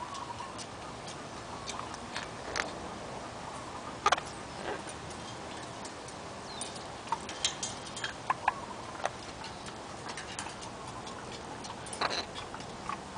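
Parrot claws and beak tapping and clicking at irregular intervals: a dozen or so sharp ticks, with a few brief soft squeaks, over a steady low hiss.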